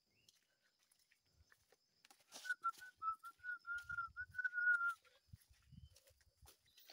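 A person whistling a short wavering tune of close-pitched notes for about two and a half seconds, starting about two seconds in, with a few soft footsteps on the forest floor.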